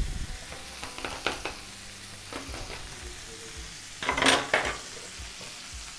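Filet mignon steaks frying in oil and butter with herbs, a steady sizzle from the pan. A sharp knock at the very start comes as garlic cloves are crushed under a knife blade on a board. A few light knocks follow, and there is a brief, louder burst about four seconds in.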